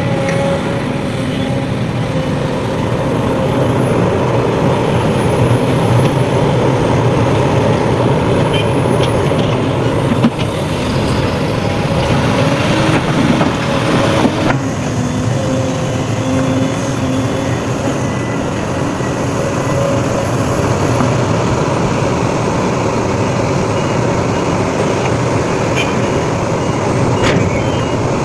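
Diesel engine of heavy earthmoving equipment, an excavator loading a dump truck, running steadily under load. Faint high whines rise and fall, and there are a few short knocks, one about ten seconds in.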